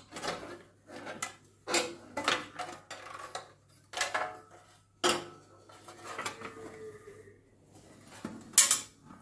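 Thin sheet-metal casing of a quartz heater clanking and rattling as it is pulled apart from the heating-element assembly: a series of sharp metallic knocks, some briefly ringing, with the loudest clank near the end.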